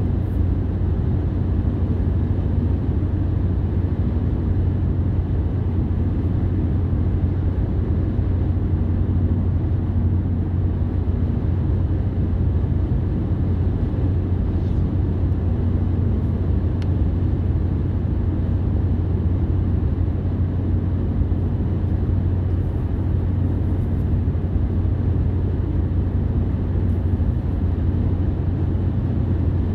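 A car driving along a road: a steady, even low rumble of engine and tyres that does not change.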